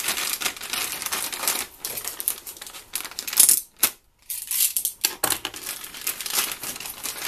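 Plastic packaging crinkling and rustling as it is handled, with a short pause about four seconds in.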